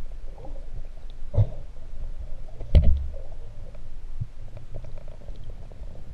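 Camera audio recorded underwater: a steady, muffled low rumble of moving water against the camera, with two dull knocks about a second and a half apart, the second the louder.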